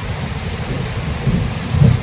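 Thunderstorm: steady rain hiss with low rolling thunder rumbling underneath, swelling near the end.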